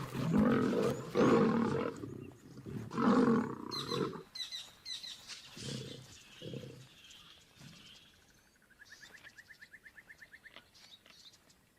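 Two male lions fighting each other, snarling and roaring loudly for about four seconds, then a few quieter growls. Near the end comes a faint, rapid, high trill.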